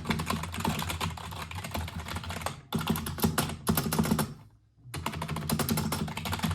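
Fast typing on an EvoFox Fireblade membrane gaming keyboard: a rapid clatter of keystrokes in three runs, with a brief break nearly three seconds in and a longer pause around four and a half seconds in.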